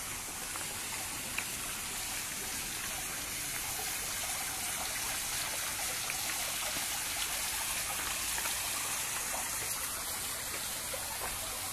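Steady rushing and splashing of water pouring into a garden fish pond from its waterfall feature.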